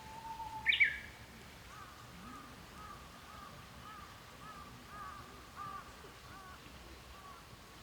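Birds calling outdoors: one sharp, loud call just under a second in, then a run of short, evenly repeated chirping notes.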